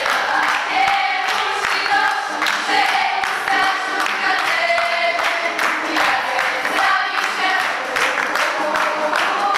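A group of young voices singing a song together, with hands clapping along to the beat.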